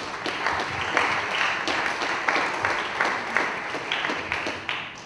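An audience applauding: many hands clapping together.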